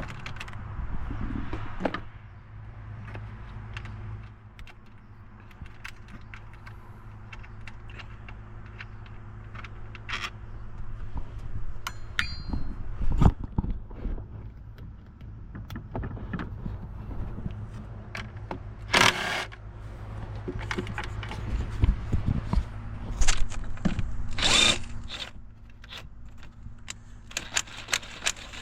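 Hand tools working the 10mm bolts of the upper intake manifold on an engine: scattered metal clicks, clinks and knocks, with a longer, louder scrape twice in the second half, over a steady low hum.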